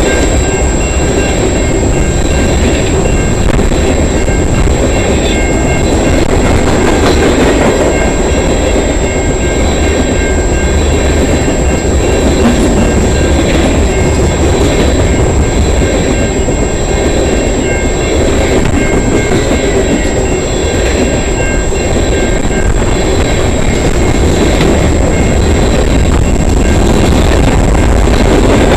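Freight train cars, tank cars and covered hoppers, rolling steadily past close by, their wheels clattering over the rails, with thin high squealing tones coming and going.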